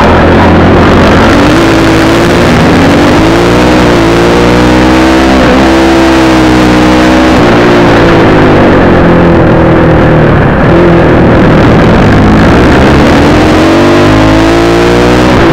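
250 cc dirt bike engine heard from an onboard camera, revs repeatedly climbing and dropping as the rider accelerates, shifts and backs off. Wind buffeting on the microphone, very loud and overdriven.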